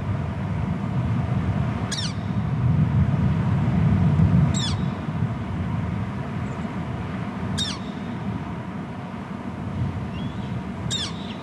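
Juvenile bald eagle calling four times, each a short, high, falling whistle, a few seconds apart, over a steady low rumble.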